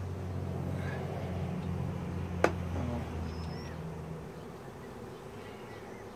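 Honeybees buzzing around an opened hive, a steady low hum that dies down after about four seconds, with one sharp click about two and a half seconds in.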